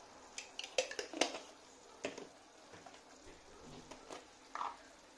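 A metal teaspoon clinking lightly against a spice jar and pan while spices are scooped into a tomato sauce: a scattered run of short taps, most of them in the first second and a half, with a few more later.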